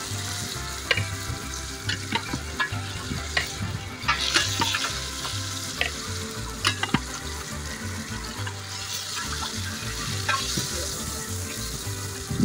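Masala-coated chicken pieces sizzling in hot oil in a large aluminium pot as they are lifted out with a metal skimmer, the sizzle swelling twice. Scattered clinks of the skimmer against the pot.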